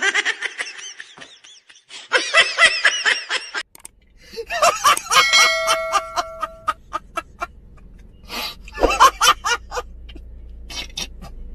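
A man laughing hysterically in repeated fits, with short breaks between them.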